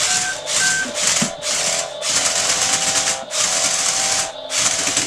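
Electric motors and plastic gearing of a Qihui 4x4 remote-control off-roader built from clamp bricks, whirring in a string of short bursts as it is driven back and forth under remote control. Near the end there is a short pause before one more burst. The running is not quite smooth.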